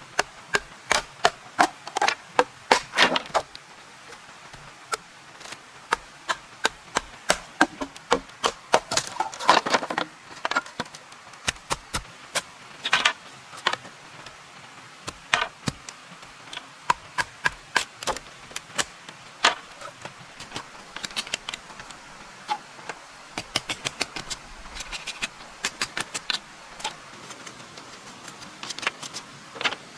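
Hand tools striking wood during timber construction: a long run of sharp, irregular knocks and taps, often in quick clusters with short pauses between them.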